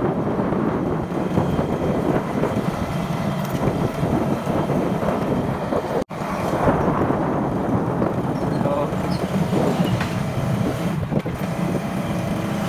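Wind buffeting the microphone over the steady running of a road vehicle on the move, with a brief dropout about six seconds in.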